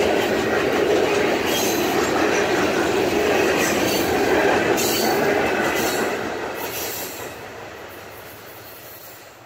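Freight cars of a CSX manifest train, tank cars and covered hoppers, rolling past steadily on the rails. The sound fades out over the last few seconds.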